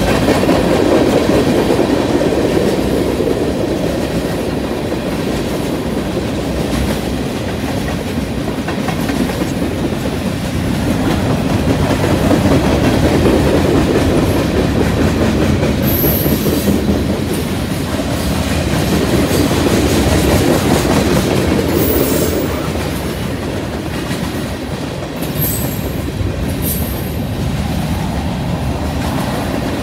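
Freight train cars rolling past: steady wheel rumble and clickety-clack over the track that swells and eases as cars go by. A few brief high wheel squeals come in the second half.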